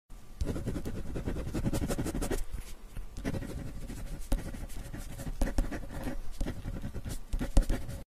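Pen writing on a sheet of paper on a hard table: uneven scratching strokes with short light ticks between them, cutting off just before the end.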